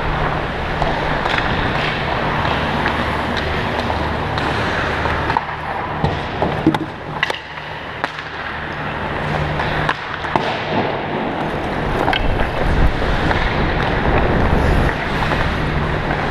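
Ice hockey skates scraping and gliding on rink ice, heard close up from a skater, with a few sharp clacks of sticks and puck and a steady low hum underneath.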